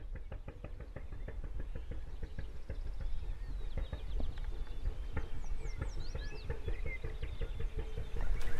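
Outdoor dawn ambience: wind rumbling and crackling on the microphone, with a small bird chirping a few quick high notes about five to seven seconds in.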